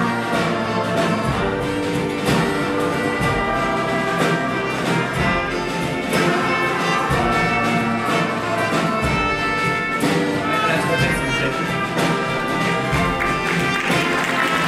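Live ensemble of violins, ukulele, double bass and trumpet playing a folk-style song with a steady beat, brass and strings carrying the tune. Applause begins just at the end.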